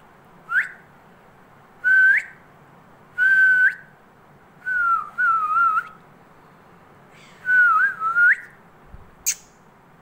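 A run of about five short whistles, each held on one pitch and then flicking sharply upward at the end, the later ones wavering up and down. A sharp click near the end.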